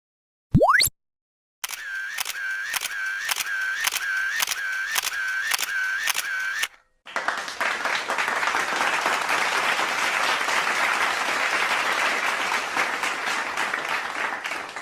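A string of edited sound effects. First comes a short, loud rising sweep. Then a rapid series of camera-shutter clicks, about three a second, runs for about five seconds, and after it comes a long steady hiss of applause-like noise.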